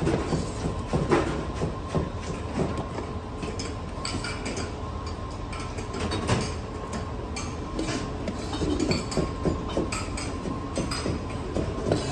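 Kitchen background noise: a steady low rumble with frequent clinks and clatters of metal.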